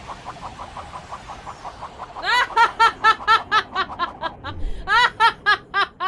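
A high-pitched cackling laugh: rapid 'ha-ha-ha' bursts, about four a second, breaking out loudly about two seconds in, over a faint hiss and quick softer pulsing at the start.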